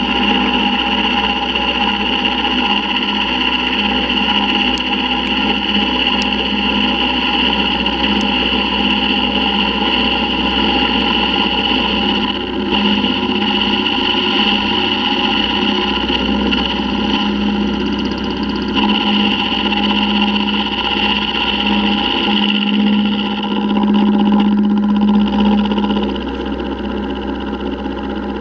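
Vertical milling machine running with an end mill cutting into a steel exhaust flange plate: a steady high whine and lower hum from the spindle and the cut. It eases off a little about two seconds before the end.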